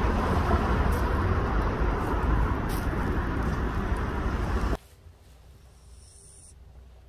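Steady outdoor background rumble with hiss, the kind of noise traffic or wind on the microphone makes, which cuts off suddenly about five seconds in, leaving only a quiet low hush.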